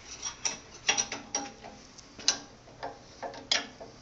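A wrench snugging up the drawbar on a mill-drill's R8 spindle: a string of irregular metallic clicks and clinks.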